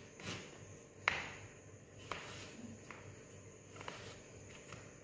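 Kitchen knife cutting cherry tomatoes on a cutting board: about five sharp taps of the blade against the board, irregularly spaced roughly a second apart, the loudest about a second in.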